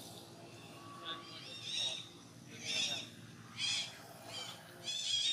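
A baby macaque's high-pitched cries: short calls repeated about once a second, each rising and falling in pitch.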